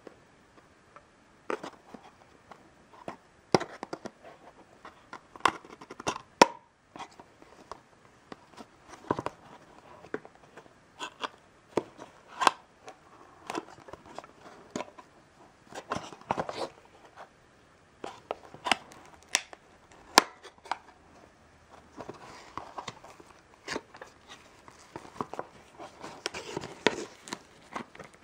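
Fingers handling a small cardboard box: irregular sharp scratches and taps as a fingernail picks at its edges. From about two-thirds of the way in, denser crinkling as the clear plastic wrap on the box is worked loose.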